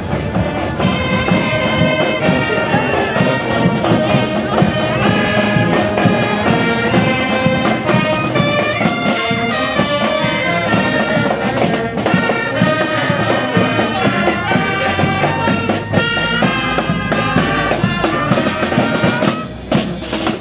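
Brass band playing a tune, with horns carrying the melody in held notes; the music drops away near the end.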